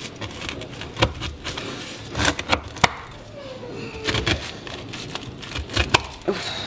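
A knife chopping down through a glazed baked slab, cutting it into squares: a run of irregular, sharp knocks as the blade strikes the board or tray.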